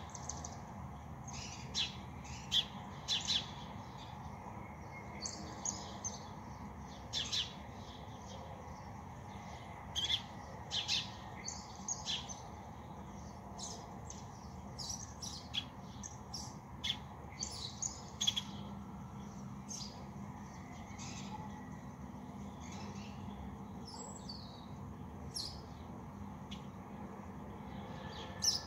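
Birds chirping: many short, high calls scattered irregularly, busiest in the first two-thirds and thinning out towards the end, over a steady low background rumble.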